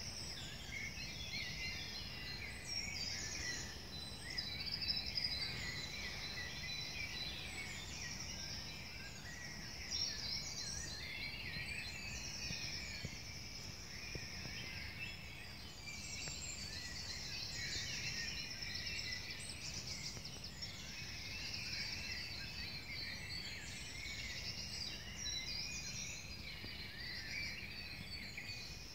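Woodland evening bird chorus: many birds singing at once, short overlapping chirps and phrases, over a steady low rumble.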